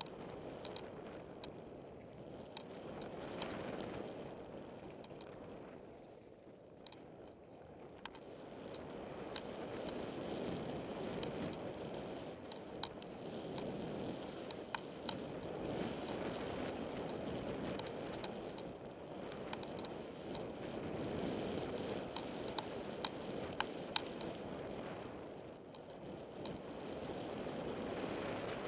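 Wind on the microphone and mountain bike tyres rolling over a gravel trail, the rush swelling and easing with speed. Scattered sharp clicks cut through it, several in quick succession near the end.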